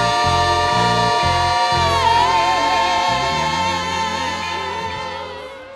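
Gospel choir with band holding the final chord of a song: the bass rhythm drops out about two seconds in, the voices sustain the last note and it fades away near the end.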